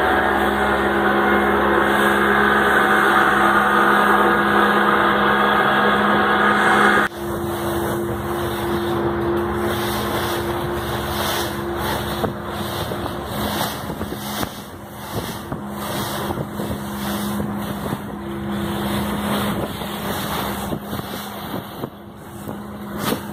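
Motorboat engine running steadily underway, under a loud rush of water and wind along the hull. The rush drops off abruptly about seven seconds in, leaving the engine hum and a fluttering wash.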